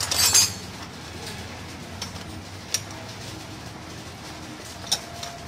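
Bolts being hand-fitted into the steel centre-pin housing plate on a tractor's front axle: a short scrape at the start, then two sharp metal clicks about two seconds apart.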